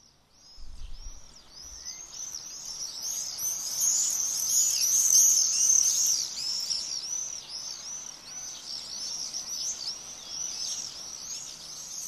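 Swifts calling: a dense run of high, overlapping calls that grows louder to a peak around five or six seconds in, then eases off a little.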